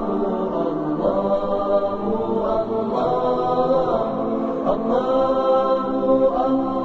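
A cappella vocal 'aahs': voices singing long, held, wordless notes that glide slowly in pitch, with no instruments.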